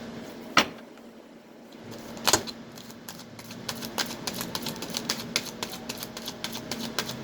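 Irregular clicking and flicking of tarot cards being shuffled by hand, with a couple of sharper snaps early on, then a quicker run of several clicks a second, over a faint steady hum.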